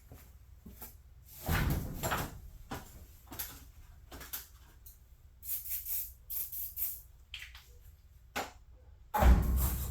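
Irregular knocks and clanks of work on a garage door and its hardware, with a heavier thump about a second and a half in and another near the end.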